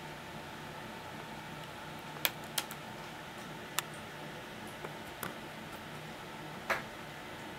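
Click beetle on its back snapping its body to jump and right itself: about six short, sharp clicks at uneven spacing, the loudest a little over two seconds in and near the end.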